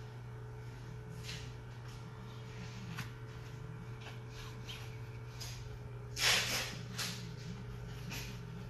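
Paintbrush strokes swishing on a canvas, mostly faint, with one louder, brief swish about six seconds in, over a steady low hum.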